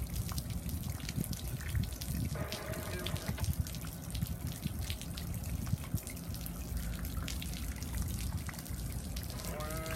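Rain and wind noise on the microphone: a steady low rumble with many small drop-like taps. A brief pitched sound comes about two and a half seconds in, and a rising pitched sound right at the end.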